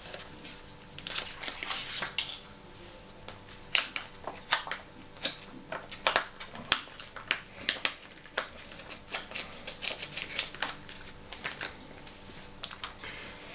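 Foil MRE ration pouch crinkling as it is opened and squeezed empty by hand, with a soft crinkling stretch near the start and then many short, sharp crackles.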